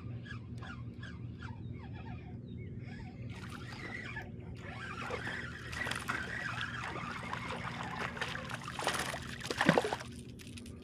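A small hooked snook thrashing and splashing at the water's surface as it is reeled in to a kayak, the splashing growing from about three seconds in and loudest just before the end as the fish is lifted out of the water.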